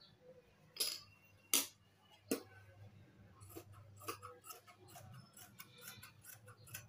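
Three sharp clicks in the first couple of seconds, then large tailor's scissors snipping through a length of dress fabric in a quick run of cuts from about three and a half seconds in.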